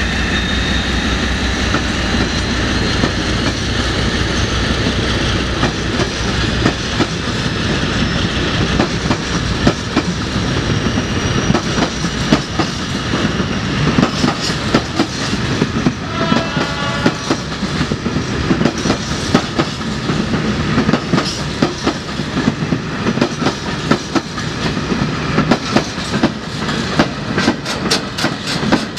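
Class 56 diesel locomotive's Paxman 16-cylinder engine pulling away with a deep throb that fades over the first several seconds. A long rake of ballast wagons then rolls past with rhythmic clickety-clack over the rail joints, the clacks coming quicker near the end, and there is a brief wheel squeal about halfway through.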